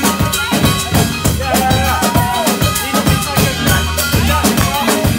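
Live soul band playing, a drum kit keeping a steady beat under an upright bass and a wavering melody line.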